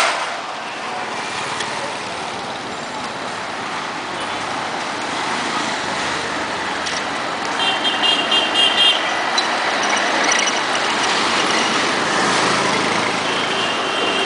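Night street traffic: a steady wash of passing car and motorcycle engines. About eight seconds in comes a quick run of about six short, high-pitched beeps, and near the end a longer high tone.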